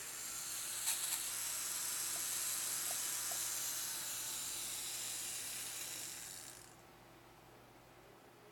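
Small DC hobby motor under PWM speed control from an Arduino through a transistor, whirring as it speeds up and then slows back down. It stops about seven seconds in.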